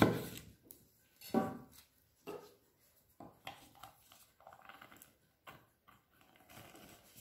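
A knife cutting through a lemon and knocking sharply on a bamboo cutting board, with another knock about a second and a half later. Then a lemon half is twisted and pressed on a plastic hand citrus reamer: a run of soft, irregular rasping and squeaks.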